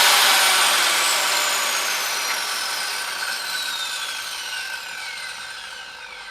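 Hand-held circular saw without a blade brake, switched off and coasting down. Its whine falls steadily in pitch and fades over several seconds, showing the blade taking a long time to stop.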